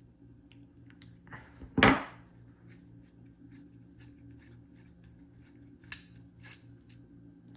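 Small metallic clicks and scrapes of a Zippo lighter being handled to take out its flint, with one louder scrape about two seconds in and a sharp click near the end.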